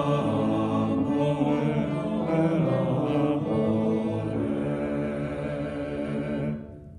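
Choir singing a cappella, several voice parts together in chords, stopping about six and a half seconds in.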